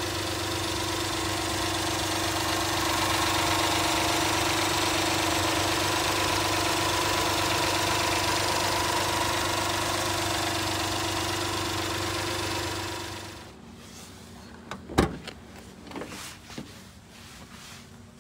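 A 1996 Honda Acty truck's small three-cylinder engine idles steadily, then falls away about 13 seconds in. A single sharp knock follows a little later, then a few faint clicks.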